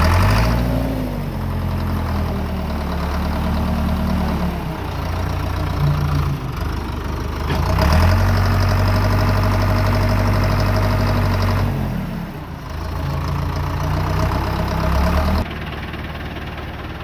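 Ford backhoe's engine running, revving up about half a second in and again for about four seconds from around eight seconds, then settling back; the level drops suddenly near the end.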